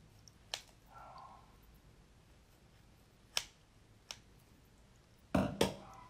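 Red kitchen scissors snipping around a geoduck clam's shell: a few separate sharp clicks, then two louder snaps close together near the end as the blades cut through.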